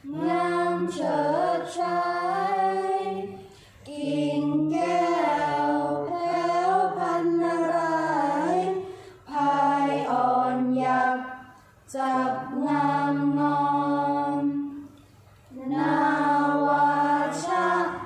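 A mixed group of young voices chanting a Thai royal barge song (Kap He Ruea) in unison, unaccompanied, in the drawn-out melodic Thai recitation style. The long sung phrases are broken by brief pauses for breath.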